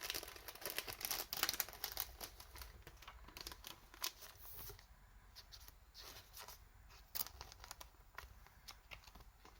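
Soft crinkling and ticking of thin plastic card sleeves being handled as a trading card is slid into a sleeve, busiest in the first few seconds and thinning out later.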